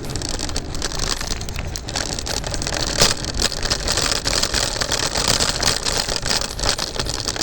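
Electric scooter riding over rough pavement: a steady rumble and hiss from the tyres, with constant rattling and clicking as the scooter vibrates hard.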